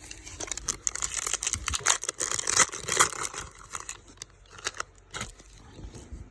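Retail trading-card pack wrapper being torn open and crinkled: a dense run of crackling and tearing, loudest in the first half, then a few scattered crinkles.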